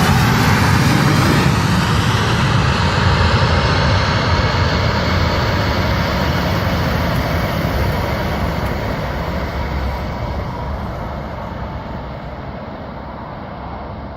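Jet engine noise from a Boeing 737 MAX 8's CFM LEAP-1B turbofans, a loud rush with a faint high whine. It is strongest at first and fades steadily as the aircraft moves away along the runway.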